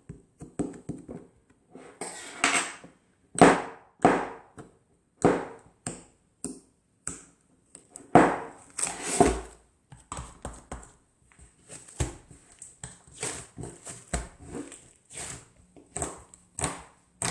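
Handling and eating mozzarella and cheddar cheese close to the microphone: an irregular run of short crinkles, taps and mouth sounds, with the loudest clusters about two to four seconds in and again around eight to nine seconds.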